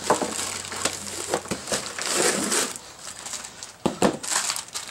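Packing material crinkling and crunching as a boxed part is unwrapped by hand, with a few sharp clicks and knocks, two close together near the end.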